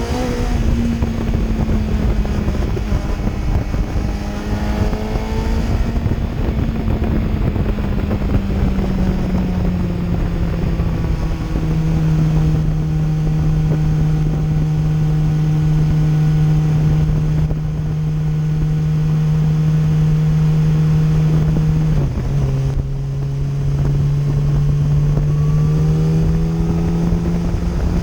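2008 Yamaha FZ1's inline-four engine running steadily while being ridden, with wind rushing over the microphone. The engine note eases down, holds level, dips about three-quarters of the way through, then slowly rises. This is after a new ignition coil cured the stutter it had below 4,000 RPM.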